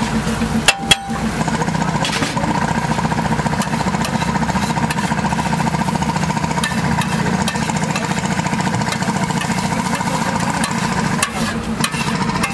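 A steady, finely pulsing mechanical drone runs throughout, over which a metal spatula scrapes and knocks against a large iron pan while egg mixture is stirred and fried, with a couple of sharp knocks about a second in and a small clatter near the end as the food is scraped into a steel bowl.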